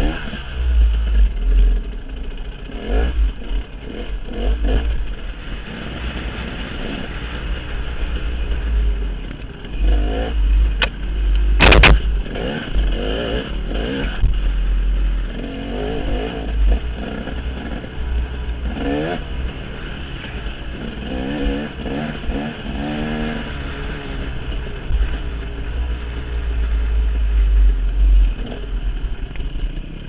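Dirt bike engine being ridden over rough rocky trail, revving up and dropping back again and again as the throttle is worked, with a heavy wind rumble on the microphone. A single loud knock about twelve seconds in.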